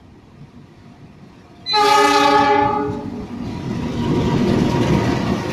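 CC 206 diesel-electric locomotive sounds one loud horn blast, a little over a second long, then rumbles past close by.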